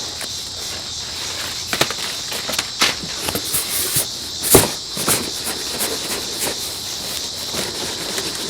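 Packing paper rustling and crinkling, with a few sharp knocks as hands dig through the bottom of a cardboard shipping box; the loudest knock comes about four and a half seconds in. Under it runs a steady high-pitched hiss.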